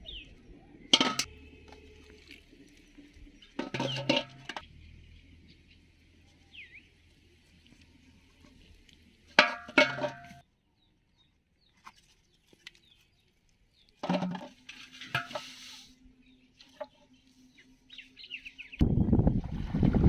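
Aluminium cooking pot clanking and ringing four times, a few seconds apart, as plastic bottles are dropped into it and it is handled. Faint bird chirps come in between, and a loud rushing noise starts near the end.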